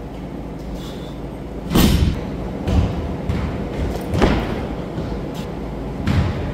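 A barbell loaded with bumper plates worked through power clean and jerk reps: four heavy thuds as the bar is caught and the lifter's feet land on the wooden platform, the loudest about two seconds in and just after four seconds.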